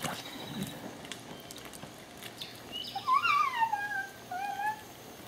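Two high-pitched whining cries about three seconds in: the first wavers and slides downward, the second is shorter.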